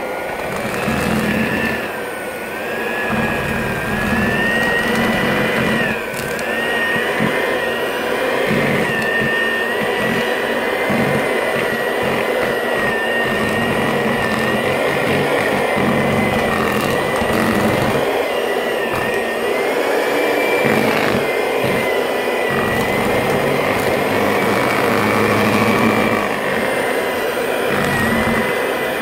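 Electric hand mixer running continuously, its motor whine wavering slightly in pitch as the beaters work through a thick batter of oil, melted butter and dry ingredients in a plastic bowl.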